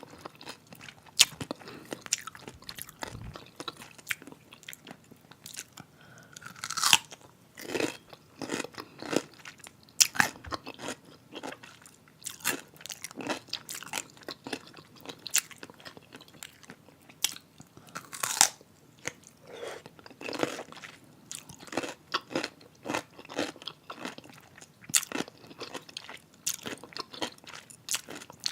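Close-miked crunchy pickle being bitten and chewed: a long run of wet, crackling crunches, with a few louder bites standing out now and then.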